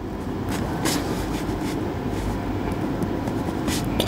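A steady low rumbling noise, with a few light taps over it.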